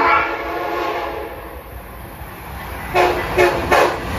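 Amtrak Acela Express power car's air horn sounding as the train approaches: a long blast that fades about a second in, then three short toots near the end. The train's rumble runs underneath.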